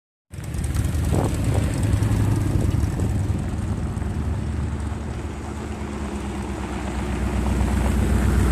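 A motor vehicle engine running close by, a steady low drone that grows louder near the end, with wind buffeting the microphone.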